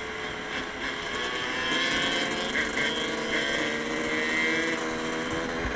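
Honda dirt bike's engine running while under way, revving up about a second and a half in, holding the higher revs, then easing off near the end.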